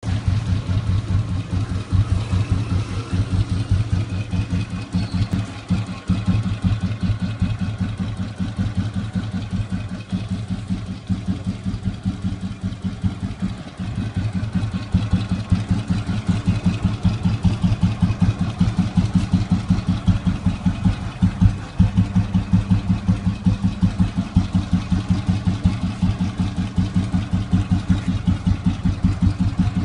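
1969 Royal Enfield Bullet single-cylinder four-stroke engine idling with its slow, even thump, about four beats a second.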